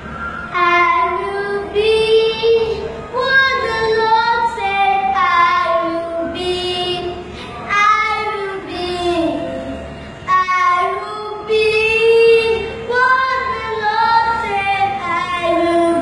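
A six-year-old boy singing solo and unaccompanied, in held, sliding phrases with short breaks between lines.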